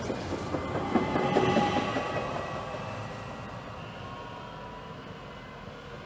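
ÖBB Cityjet electric multiple unit running past on the platform track: wheel rumble and clatter, loudest about a second or two in, with a steady electric whine. The sound then fades gradually as the train draws away.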